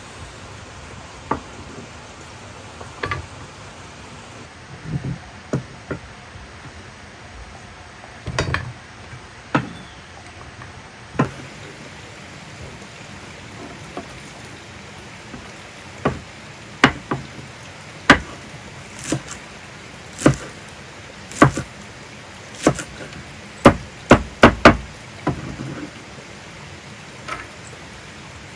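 Large kitchen knife chopping meat and spring onions on a wooden cutting board: single sharp knocks at uneven intervals, about one a second, coming faster with a quick run of chops near the end.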